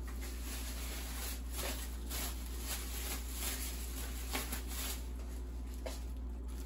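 Soft, scattered rustling and handling noises over a steady low hum: someone rummaging off-camera for an item.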